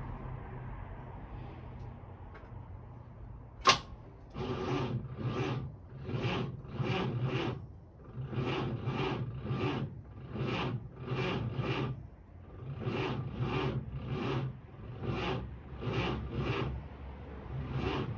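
1946 Chevrolet Fleetmaster's inline-six being cranked by its 6-volt starter: a sharp click about three and a half seconds in, then slow, rhythmic cranking at roughly two compression strokes a second, with brief pauses, without the engine catching.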